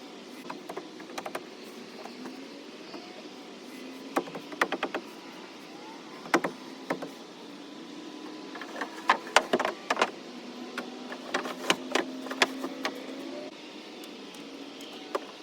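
Scattered sharp knocks and clicks, with a faint steady hum of a small electric motor that is strongest a little past the middle.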